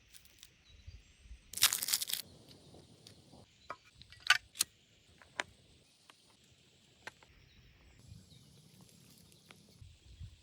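A short, loud scraping burst about a second and a half in, then scattered sharp clicks and taps, over a steady faint high hiss of outdoor background.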